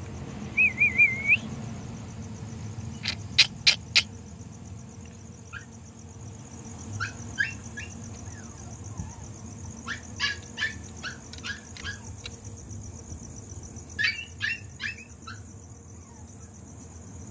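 Puppy yipping: short, high-pitched yelps in several quick bursts of three to six, with a brief wavering whimper about half a second in. A thin steady high whine runs underneath.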